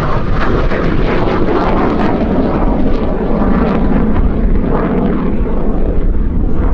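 MiG-17F's Klimov VK-1F turbojet heard from the ground as the jet flies overhead: loud, steady jet noise that swells and eases slightly.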